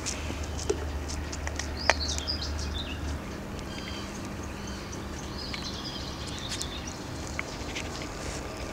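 Songbirds chirping and singing outdoors, with a few light clicks and taps of handling. A low steady hum stops about three seconds in.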